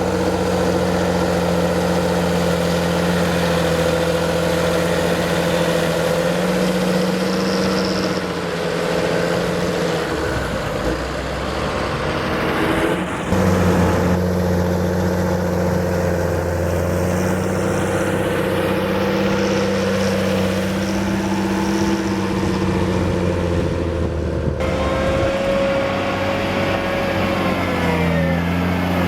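John Deere 7720 tractor's six-cylinder diesel engine working hard while pushing silage up a silage clamp, running at steady high revs. The revs sag for a few seconds about a third of the way through, then climb back quickly, and near the end the engine note falls away as the revs drop.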